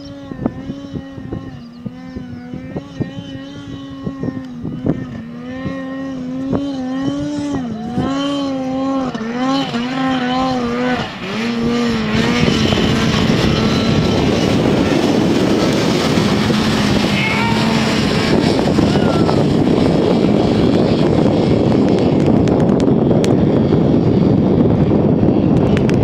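Snowmobile engine revving, its pitch rising and falling as it pulls a wakeboarder across slushy water. About twelve seconds in, a loud steady rushing noise takes over and stays loud while the engine fades beneath it.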